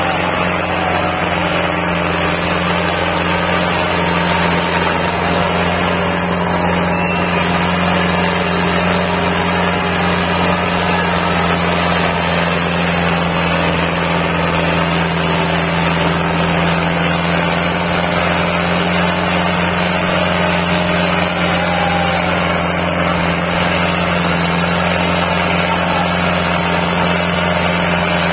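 HMT 6522 tractor's diesel engine running hard and steady under heavy pulling load, its pitch holding level with no revving up or down.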